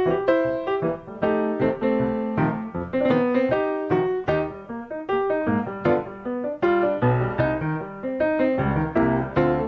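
Solo ragtime piano music, a quick run of struck notes over a bouncing bass.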